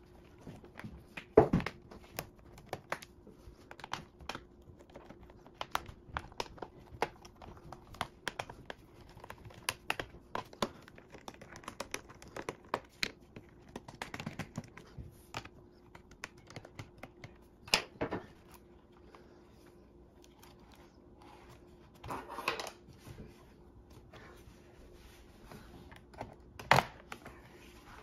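Hands handling the plastic underside of a Lenovo ThinkPad X240 laptop on a wooden table: scattered clicks and taps with a few louder knocks, and a short rubbing sound about two-thirds of the way through.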